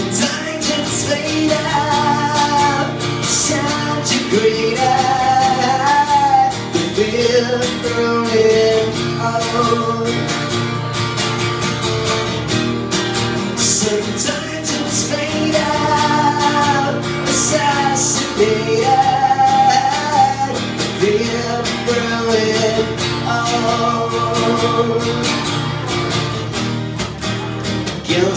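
Live acoustic guitar strumming with a male voice singing a melody over it.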